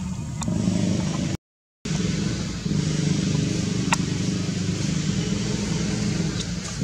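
Steady low drone of an engine running, with no change in pitch. The sound cuts out briefly about a second and a half in, and there is a faint click near four seconds.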